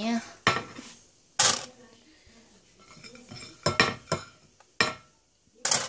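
A few sharp, separate knocks and clatters of metal kitchenware, about six in all. The loudest come about a second and a half in and just before the end.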